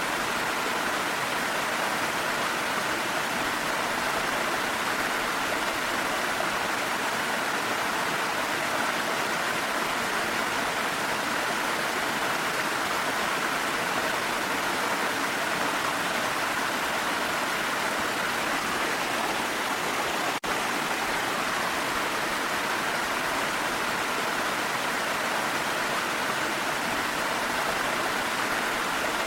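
Waterfall rushing steadily, an even roar of falling water. There is a brief click and a momentary dip in loudness about twenty seconds in.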